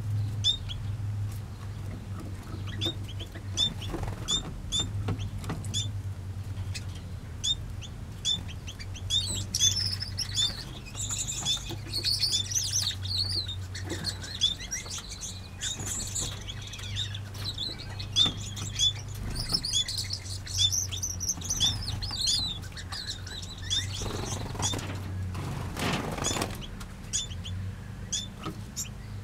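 Small aviary finches chirping: a short high call repeats about once a second, with busier twittering about ten seconds in and again about twenty seconds in, over a low steady hum. A brief rushing noise comes near the end.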